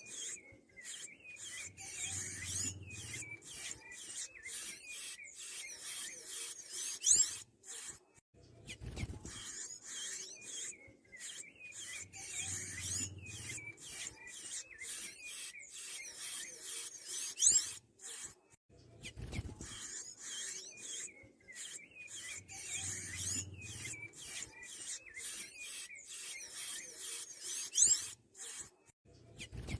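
Sanhaço tanager twittering in rapid, squeaky short notes. Every ten seconds or so comes a loud, sharp rising whistle, and the same passage repeats about three times over.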